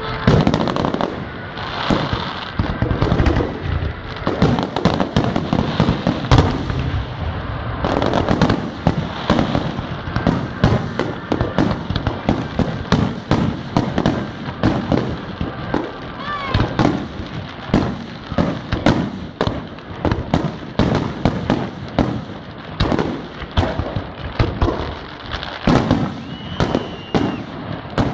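Aerial firework shells bursting in a dense, continuous barrage, several bangs a second.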